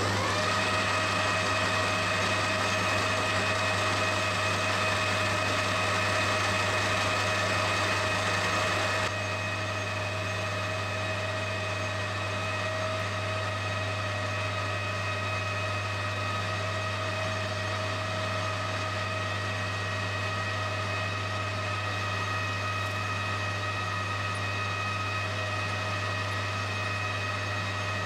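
Metal lathe running steadily while aluminium bar stock is faced and drilled: a low motor hum with a steady gear whine over it. The sound gets slightly quieter about nine seconds in.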